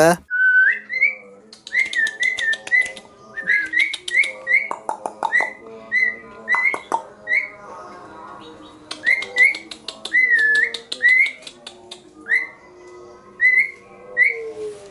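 Asian pied starling calling: a run of short whistled notes that rise and dip, about one or two a second, mixed with bursts of dry clicking chatter. It breaks off briefly about eight seconds in.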